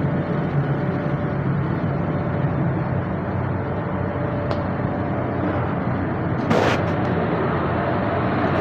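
TIG welding arc buzzing and hissing steadily, with a brief, louder crackling burst about six and a half seconds in.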